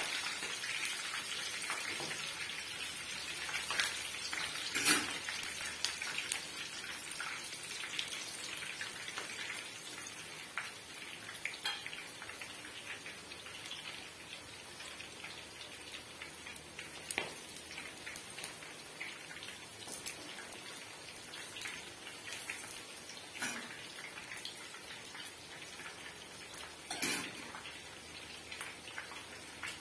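Eggplant slices frying in hot oil in a pan: a dense crackling sizzle with many small spitting pops, easing off gradually. A few sharper clicks stand out, the loudest about five seconds in and another near the end.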